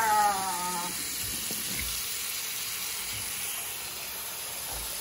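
Single-handle bathroom sink faucet running, a steady stream of water splashing into the basin.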